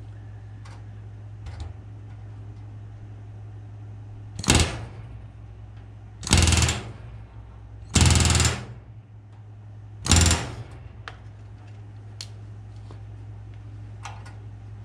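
Pneumatic rivet gun hammering solid rivets into the aluminium skin of an RV-10 horizontal stabilizer against a hand-held bucking bar: four rattling bursts, the middle two about twice as long as the first and last. A steady low hum runs underneath.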